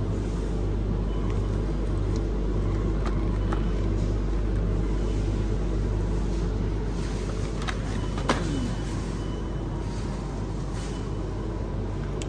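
Steady low rumble of supermarket background noise, with a few light clicks and one sharp click about eight seconds in.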